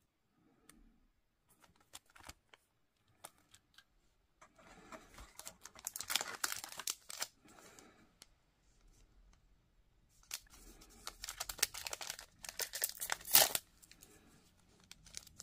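Trading-card packaging being crinkled and torn open by hand. A few light taps come first, then two spells of crinkling and tearing, with the sharpest tear near the end.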